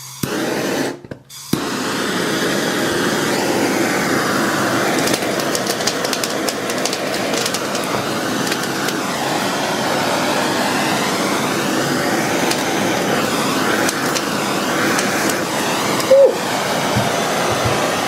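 Steady rushing hiss of a gas torch flame, broken off briefly about a second in and then running on.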